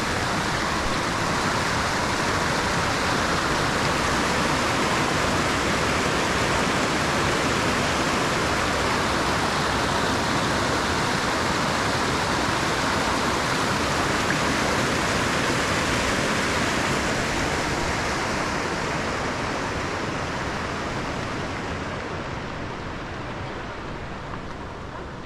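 Rushing water of a mountain stream or cascade, a steady loud hiss that fades over the last few seconds.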